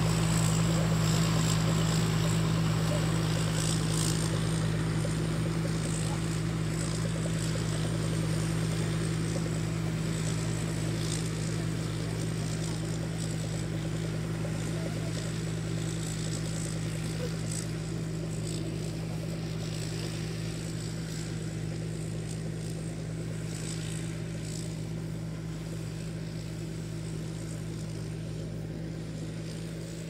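Rice combine harvester's engine running, a steady drone that slowly fades over the stretch.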